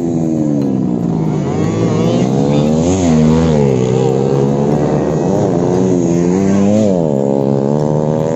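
Honda Supra 150cc road-race motorcycle engine revving, its pitch rising and falling several times, with the sharpest climbs about 3 seconds in and just before 7 seconds.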